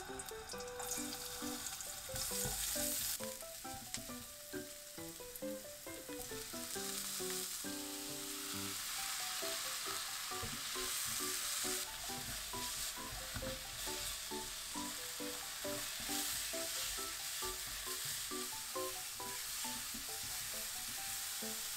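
Food sizzling in hot oil in a frying pan, a steady hiss that grows denser about halfway through, over light plinking background music.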